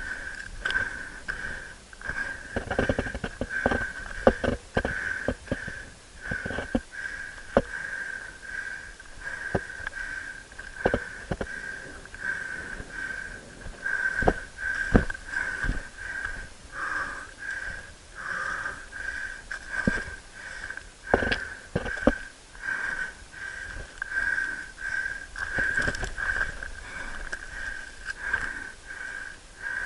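A climber breathing hard in a steady rhythm close to the microphone while scrambling up loose scree, with irregular knocks and scrapes of hands and boots on rock and stones.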